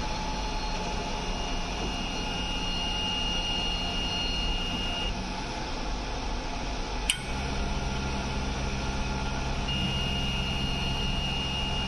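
BGA rework machine running with a steady fan hum and a thin high whine. About seven seconds in there is a sharp click, and the low hum grows stronger after it.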